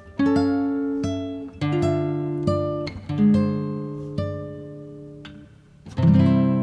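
Background music: a plucked acoustic guitar playing a melody of single ringing notes, then a louder chord about six seconds in that rings on.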